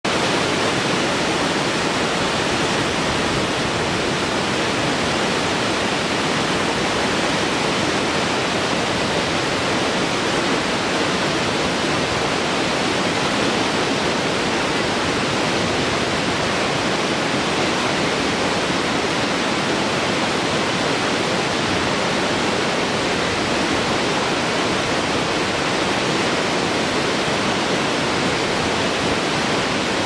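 Large multi-tiered cascade waterfall: water rushing steadily down many rock ledges in an even, unbroken roar.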